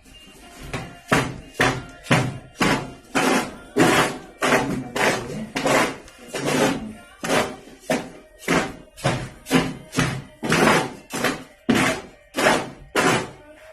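Repeated hard blows, a little over two a second, each with a short gritty tail, typical of hammering on concrete or plaster during building repair work.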